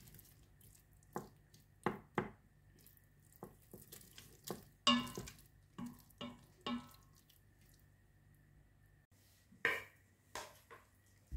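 Wooden spoon stirring thick risotto in the stainless-steel inner pot of an electric pressure cooker, creaming in butter and parmesan, with irregular knocks and scrapes of the spoon against the pot, some ringing briefly. After a pause of about two seconds, a few more knocks come near the end.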